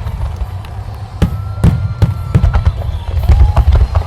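Fireworks going off in rapid succession: a dense barrage of sharp cracks over deep, overlapping booms from an aerial starmine display, loudest near the end.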